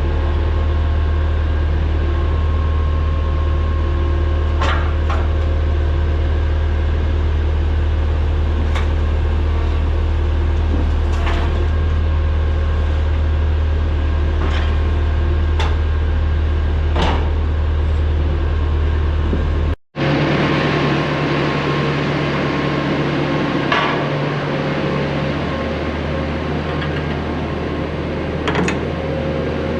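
Diesel engine of a piece of loading equipment running steadily, with scattered sharp clanks and knocks from the load being handled. About twenty seconds in the engine hum changes to a slightly higher steady note.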